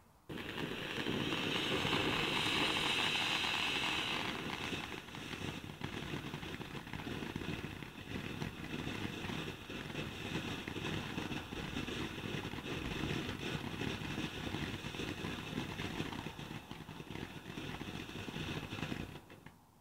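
Ground fountain firework spraying sparks: a steady hiss, loudest in the first few seconds, with dense crackling throughout. It starts abruptly just after the beginning and stops near the end.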